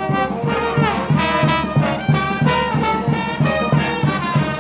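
Brass band playing a lively tune over a steady, regular beat.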